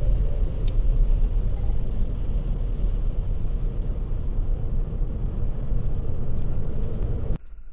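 Steady low rumble of outdoor background noise, cutting off abruptly near the end.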